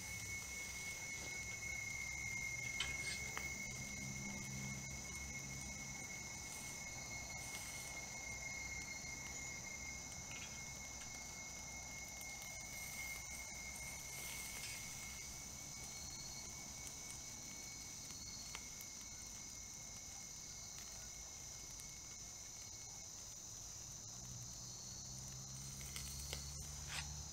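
Night insects trilling steadily in a continuous chorus: a high, even buzz with a clear single tone running beneath it. A few small knocks near the end.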